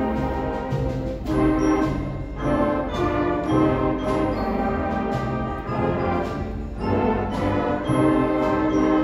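Symphonic concert band of brass, woodwinds and percussion playing a Christmas piece: full sustained chords that change every second or so, with accented percussion hits.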